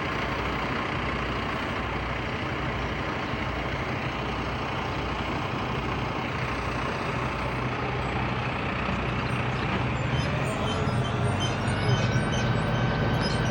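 Crane truck's engine running steadily while the crane works, with a thin steady whine coming in near the end.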